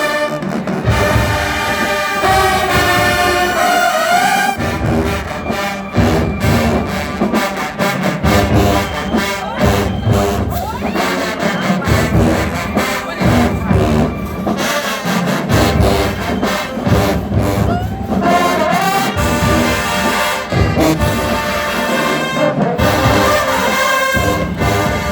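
Brass ensemble playing loud held chords and melody lines, with rapid drum strikes joining in about five seconds in.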